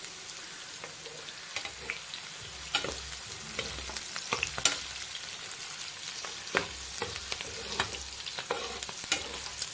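Chopped onions sizzling in hot oil in a non-stick frying pan, stirred with a metal spoon that clicks and scrapes against the pan at irregular moments over a steady hiss.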